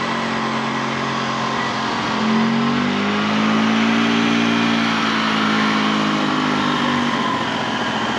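Repaired golf cart's engine running. About two seconds in it speeds up, holds at the higher speed, and drops back near the end.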